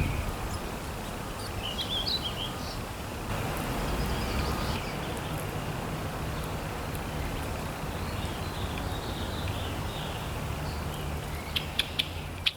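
Small birds chirping briefly over a steady low rumble, with a few sharp chirps near the end.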